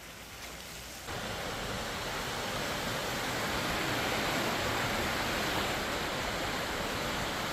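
Steady rushing water noise of heavy rain and a car pushing through street floodwater, stepping up in level about a second in.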